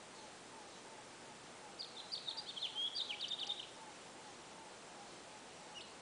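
A songbird sings one quick twittering phrase of rapid high notes lasting about two seconds, starting about two seconds in, with a single short note near the end. A faint, evenly spaced series of lower notes carries on underneath.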